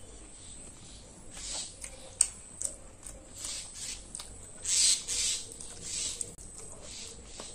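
Close-miked mukbang eating sounds: chewing and mouth smacking, with a few sharp clicks and a louder burst about five seconds in.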